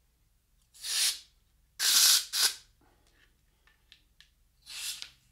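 Can of compressed air (canned air duster) sprayed in four short hissing bursts under a bicycle handlebar grip to loosen it, the third burst brief, the last near the end.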